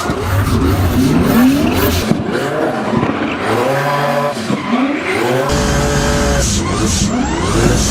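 Twin-turbo M120 V12 drift car with a straight-cut manual gearbox, its engine and gear whine rising and falling in pitch several times as it is revved through drift entries. Tyres squeal and skid throughout.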